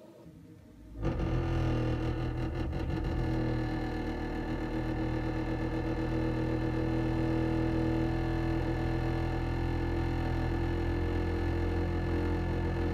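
Ferroli Optimax 25C combi gas boiler making a loud, steady hum of several tones that starts suddenly about a second in. The title calls it a crazy noise. It happens on starting the central heating from cold, and the owner thinks it comes from the fan running at low speed.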